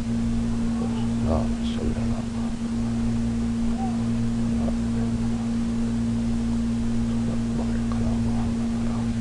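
A steady low hum, with faint scattered rustles and murmurs from a praying congregation.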